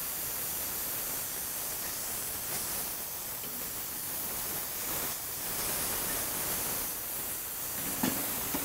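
Beef burger patties sizzling steadily on a hot steel griddle plate over charcoal, just flipped onto the hot side. A couple of light clicks come near the end.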